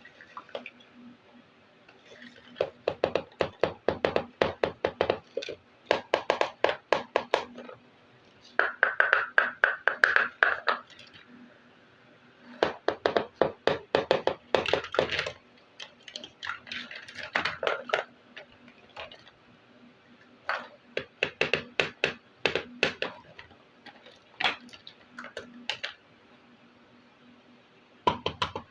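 Small plastic toy kitchen pieces from a miniature kitchen set being handled and unboxed: bursts of rapid clicking and tapping lasting a few seconds each, with short pauses between.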